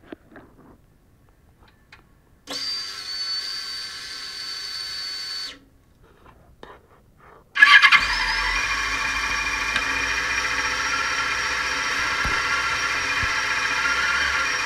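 Heard through an electronic stethoscope-style microphone on a Yamaha motorcycle: faint clicks of the key going into the ignition and the lock's tumbler pins moving, then a steady fuel pump whine for about three seconds as it primes. After a short pause the engine starts about seven and a half seconds in and settles into a steady idle.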